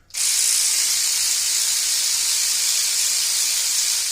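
A loud, steady hiss that starts suddenly and holds level, with no pitch or rhythm in it.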